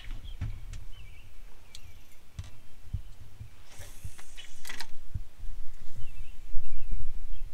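Outdoor ambience: a fluctuating low rumble that grows louder toward the end, with faint bird-like chirps, a few scattered clicks and a brief hiss about four seconds in.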